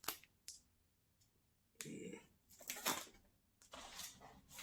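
Plastic snack wrappers rustling and crinkling in irregular bursts as they are handled, with a couple of sharp clicks near the start.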